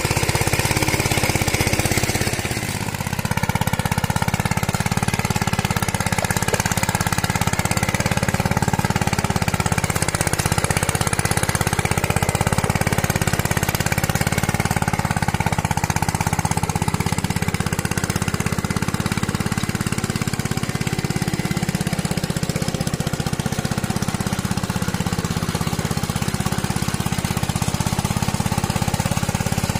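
Single-cylinder diesel engine of a two-wheel hand tractor running steadily under plowing load, with a rapid chugging beat. It dips briefly about two seconds in, then picks up again.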